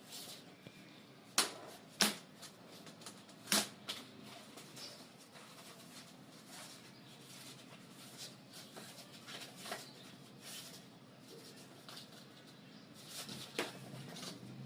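Scattered sharp knocks and clicks, as of things being handled and set down: three loud ones in the first four seconds, fainter ticks through the middle, and a few more near the end.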